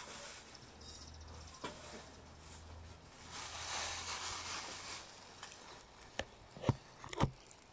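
Bamboo leaves and chayote vines rustling as they are pushed through by hand, loudest in the middle. A few sharp knocks come near the end.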